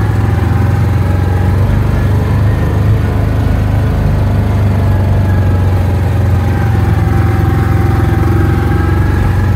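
Side-by-side utility vehicle's engine running steadily as it drives across grass, a low hum with a faint steady whine above it.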